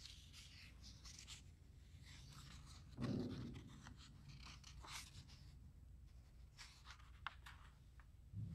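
Faint rustling and scratching, like paper being handled, with one soft low thump about three seconds in and a few light clicks near the end.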